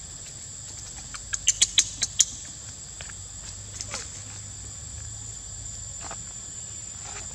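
Steady high-pitched insect drone from the surrounding forest, with a quick run of about six sharp clicks a second and a half in.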